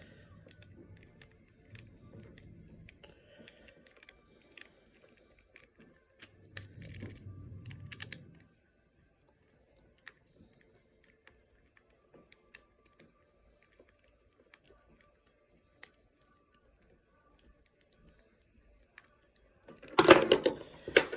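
Light clicks and taps of small plastic and metal lamp parts being handled on a workbench, with a louder clatter near the end.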